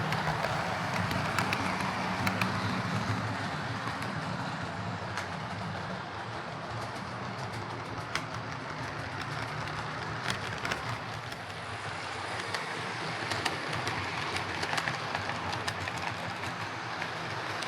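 Hornby OO gauge Class 43 HST model train running along the track with its coaches on a replacement motor: a steady hum of motor and wheels, with frequent short clicks as the wheels pass over rail joints.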